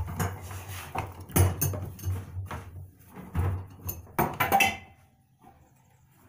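Irregular knocks, clunks and clatter of things being handled on a workbench, stopping about five seconds in.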